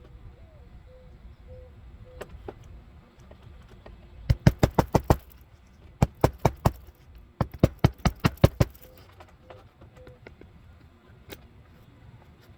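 Hammer driving roofing nails to fasten an asphalt shingle back down: three quick runs of sharp strikes, several a second, about four, six and seven seconds in.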